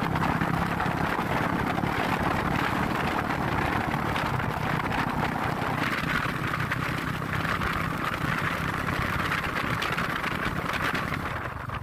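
Motorstar Cafe 400 motorcycle engine running steadily while riding, under a steady rush of wind and road noise, easing slightly near the end.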